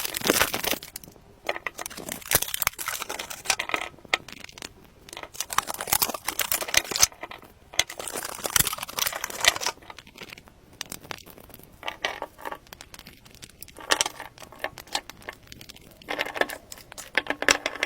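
Soap wrappers being unwrapped by hand: crinkling and tearing of the wrapping in irregular bursts, with short pauses between them.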